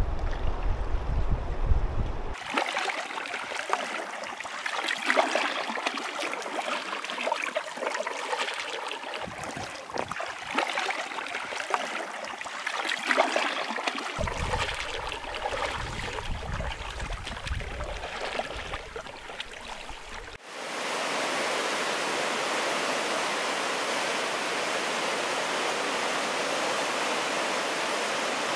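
Water splashing and lapping around an inflatable packraft as it is paddled down a fast glacial river, with irregular paddle strokes in the water. After a sudden change about two-thirds of the way in, the river's rushing turns into an even, steady hiss.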